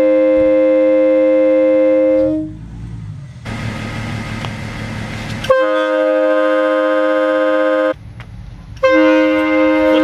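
Air-powered train horn blasting a loud multi-note chord, set off as an anti-theft alarm when the flag's rope pulls its trigger switches. It cuts off about two seconds in, with a stretch of rushing noise in between, then sounds again, stops briefly, and starts once more near the end.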